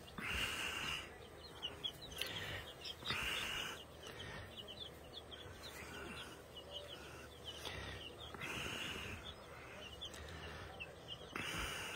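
A flock of three-week-old chicks peeping: many short, quick high chirps overlapping throughout, with a few brief hissy rushes of noise.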